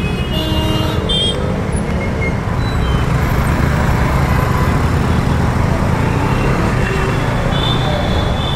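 Busy city road traffic heard from a motorcycle in the thick of it: engines running steadily, with short horn honks about a second in and again near the end.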